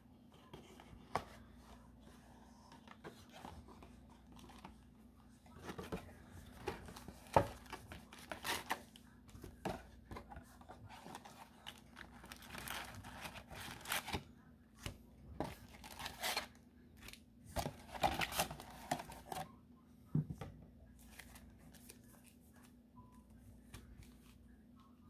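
Cardboard and paper of a Pokémon 151 booster box being handled and pulled open, a run of irregular rustles, tearing sounds and sharp clicks. It is busiest from about five seconds in to about twenty seconds in, with only light handling before and after.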